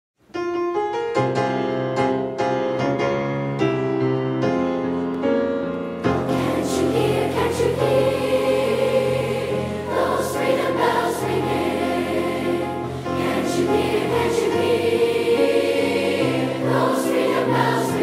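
A large school choir singing a gospel-style spiritual in full voice, entering about six seconds in after a short piano introduction of separate struck notes.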